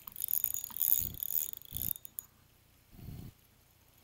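Close handling noise from the angler's rod and spinning reel on the camera microphone: a rustling hiss for about two seconds, with a few dull low thumps about a second apart.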